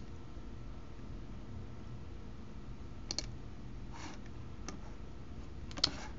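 Computer mouse buttons clicking a few times over a faint steady hum: a quick pair about three seconds in, two softer single clicks after it, and the loudest pair just before the end.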